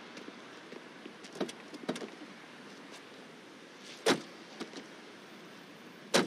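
Car doors shutting: two solid thunks, one about four seconds in and one near the end, over a faint steady hiss, with a few lighter knocks before them.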